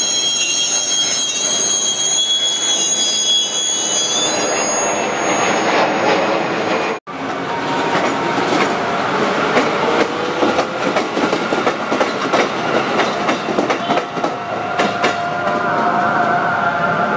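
KRL Commuterline electric commuter trains passing at close range. High wheel squeal is heard for the first few seconds, then rumble and rapid clickety-clack of wheels over the rails, with a brief break about seven seconds in. A steady two-pitched tone comes in near the end as another train approaches.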